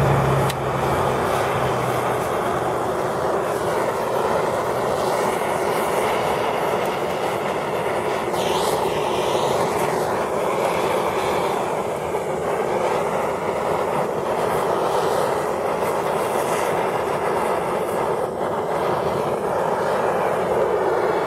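Handheld gas torch flame running on a burning polymer pistol magazine, a steady rushing hiss without a break.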